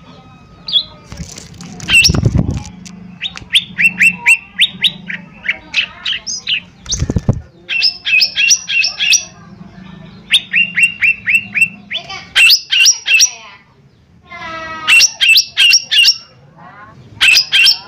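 Cucak ijo mini (leafbird) calling in quick trains of sharp chirps, five or six notes at a time, with harsher rasping calls near the end. Two low thumps come about two and seven seconds in.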